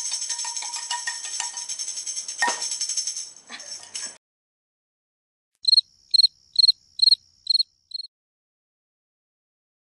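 A tambourine-like rattle closing the song fades out about four seconds in; after a short silence come six loud cricket chirps, about two a second.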